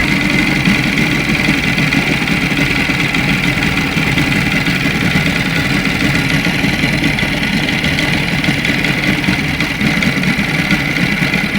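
Moskva two-stroke outboard motor idling steadily with a connecting-rod knock. The knock comes from too much clearance at the rod's needle bearing: the early crankshafts and rods were made for larger needle rollers than those later fitted.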